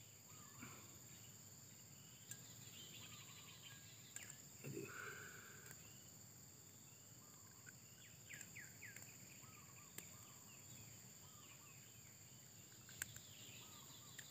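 Near silence: a faint, steady insect drone with scattered bird chirps and a few light clicks.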